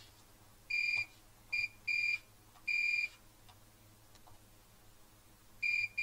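A multimeter's continuity beeper sounding in short, uneven beeps of one steady high tone as test probes touch points on a circuit board. There are four beeps in the first three seconds, then a pause, then more beeps starting near the end.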